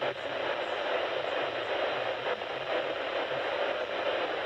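Radio receiver static: a steady, muffled hiss of a weak or noisy signal with no clear programme audio.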